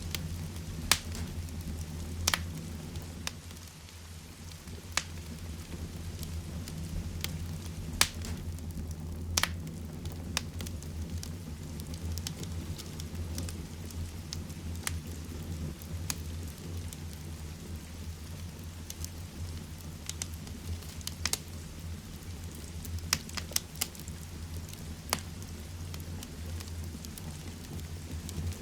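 Heavy rain falling steadily together with a wood fire in a fireplace, its crackle heard as sharp, irregular pops over the constant rushing.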